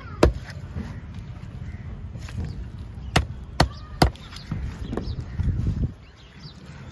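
Heavy knife chopping through baby stingray pieces on a wooden log chopping block: sharp single chops, one just after the start and three in quick succession about three to four seconds in.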